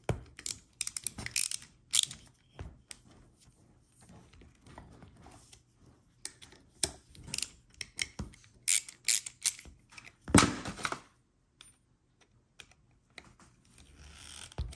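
Small socket ratchet clicking in short, irregular runs as an 8 mm socket tightens a lock nut onto a bearing bolt, with scattered light knocks of metal parts being handled. A louder, longer clatter comes about ten seconds in.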